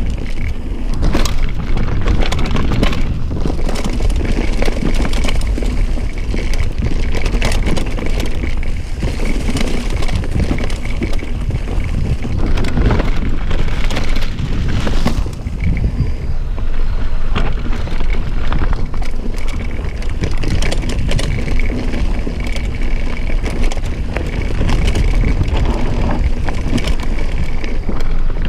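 Mountain bike riding over a rough trail: tyres on stones and the bike rattling, dense knocks and clicks over a steady low rumble.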